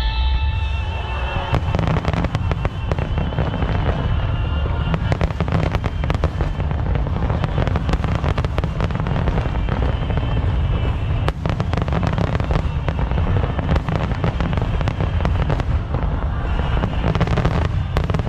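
Fireworks going off in rapid succession: dense crackling and many bangs close together over a constant low rumble. Music fades out in the first second or so.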